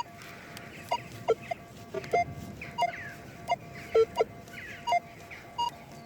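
Metal detector sweeping over a buried hammered silver coin: a faint steady threshold tone with short beeps of changing pitch, about one or two a second, as the coil passes back and forth. The response is weak and scratchy for a coin about six inches down.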